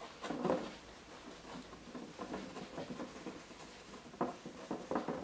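Paintbrush dabbing and scrubbing oil paint onto canvas: faint, irregular taps and soft scrapes, a little louder just after the start and again near the end.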